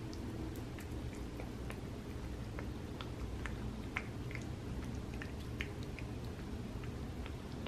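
Tabby cat chewing a homemade tuna-and-gelatin gummy bear treat: irregular small wet clicks and smacks of its mouth over a steady low hum.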